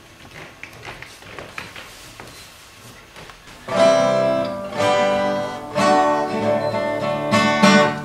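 Acoustic guitars: soft scattered plucks at first, then just before halfway the guitars break into loud strummed chords, changing chord about once a second.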